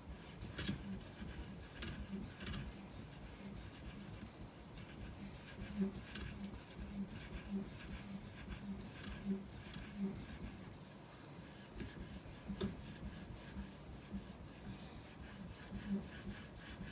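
Faint, quick, repeated rubbing strokes of a knife edge on an Edge Pro's 4000-grit diamond matrix polishing stone, with a few light clicks. These are edge-trailing stropping strokes, the final polishing stage, where the stone barely makes any cutting sound.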